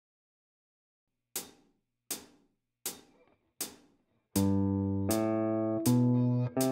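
Four click-track ticks at an even pulse count in. Then a semi-hollow electric guitar, played fingerstyle, starts up an ascending open-position G major scale, one note at each beat. Each note rings on under the next.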